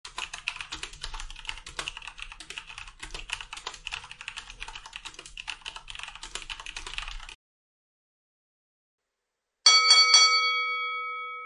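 Rapid typing sound effect, a fast stream of key clicks, which stops suddenly about seven seconds in. After about two seconds of silence a single bell-like ding rings out and fades.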